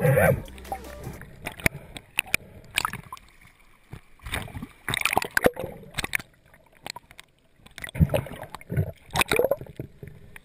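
Water sloshing and gurgling around a camera held underwater, broken by irregular sharp knocks and splashes.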